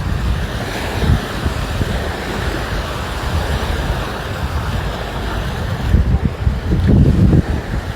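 Sea surf washing on the shore, with wind buffeting the microphone in gusts that grow louder near the end.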